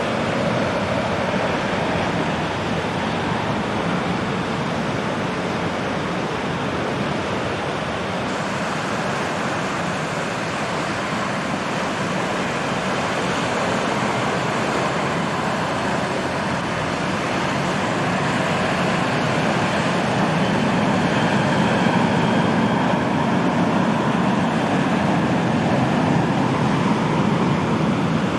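Jet airliner engines on final approach: a steady rushing that grows somewhat louder over the last third.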